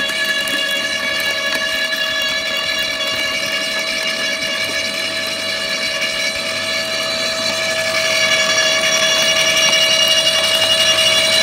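Makita UD2500 low-speed electric garden shredder running, a steady high whine with a strong single tone and overtones, as thin branches are fed into its cutting drum. It gets louder from about eight seconds in.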